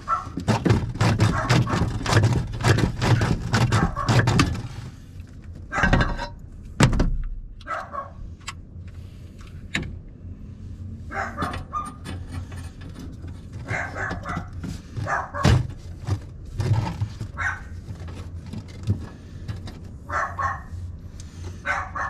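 A dog barking repeatedly in short bursts. For the first few seconds it is mixed with dense clicking and clatter from pipe work, followed by two heavy knocks.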